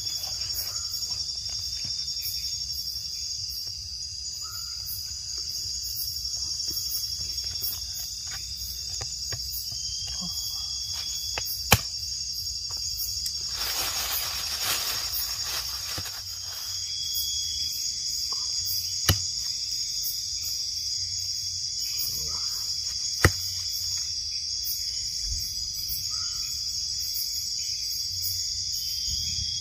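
Steady high-pitched chorus of night insects, crickets among them. A few sharp clicks stand out, and a brief rustle of plastic comes about halfway through.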